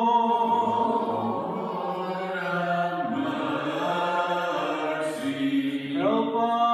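Orthodox liturgical chant: voices singing slowly on long held notes, the melody moving to new pitches about halfway through and again near the end.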